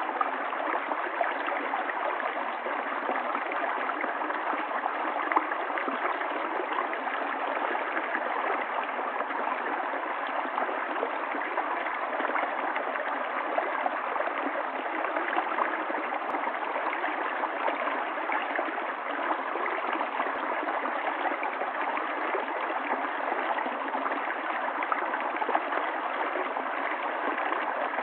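Water running steadily over rocks in a small stream or cascade, an even splashing rush with light gurgles.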